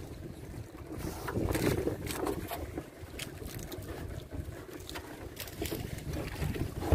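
Wind buffeting the microphone and sea noise aboard a small fishing boat at sea, with scattered light knocks.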